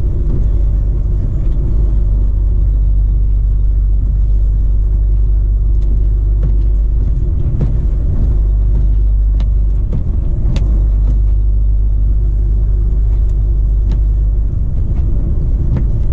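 Volvo FH16 660 truck on the move, heard from inside the cab: a steady, loud low rumble of its 16-litre straight-six diesel and the road, with faint scattered ticks now and then.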